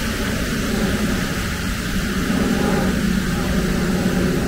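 Steady hiss of rain with a constant low drone underneath, even throughout.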